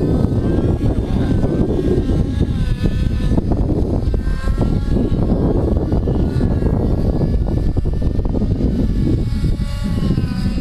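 Engine of a small propeller aircraft droning overhead, its pitch bending up and down as it flies around, under a loud steady low rumble.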